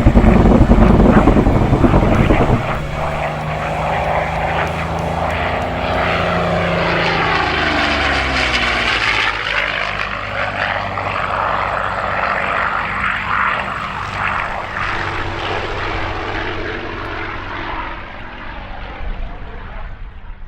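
P-40 Warhawk's machine guns firing a long, rapid burst that stops about two and a half seconds in. The fighter's V-12 engine and propeller then pass by with a falling pitch and fade away into the distance.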